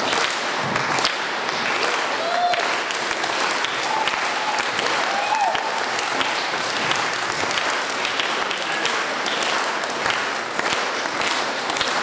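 Audience and cast applauding, a dense steady clapping with a few faint voices rising over it now and then.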